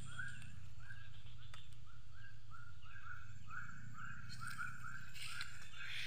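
A steady series of short chirping animal calls, about two to three a second, with a low steady rumble underneath.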